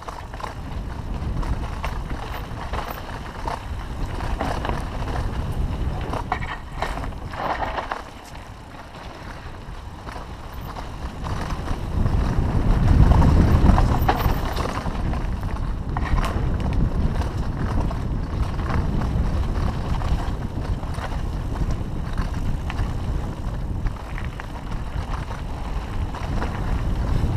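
Rolling noise of a rider going fast down a bumpy trail, with wind buffeting the microphone and scattered knocks and rattles. The rumble grows heavier about twelve seconds in, then settles back to a steady rush.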